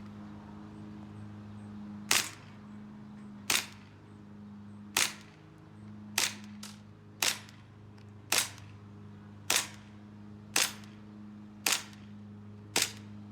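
WE Tech 1911 green gas blowback airsoft pistol firing about ten single shots, roughly one a second, each a sharp crack. A steady low hum runs underneath.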